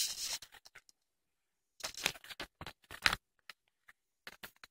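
Plastic DVD cases being handled and set down on a blanket: scattered clicks, taps and rustles in short clusters, the loudest a sharp knock about three seconds in.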